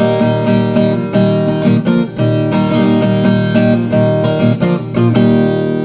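Instrumental break in a Brazilian moda caipira song: an acoustic string instrument strumming steady chords, with no singing.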